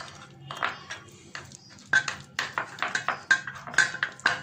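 A metal spoon stirring ghee and flour into a paste in a small glass bowl, clinking and scraping against the glass. A few strokes at first, then quick repeated clinks from about two seconds in.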